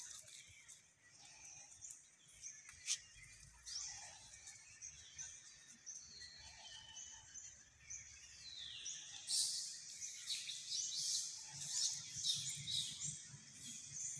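Many short, high-pitched animal chirps and squeaks, sparse at first, then denser and louder over the last third, with one falling sweep just before they thicken.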